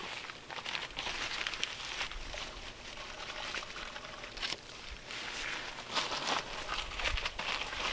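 A sack of dry mix being handled and poured into the hole at the foot of a post: bag rustling and a sandy hiss in uneven bursts, with scattered small ticks.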